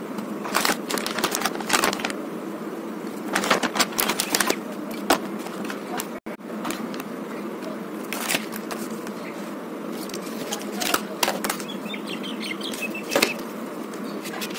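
Plastic packaging of art supplies crinkling and clicking as it is handled, in short irregular spells, over a steady background hum.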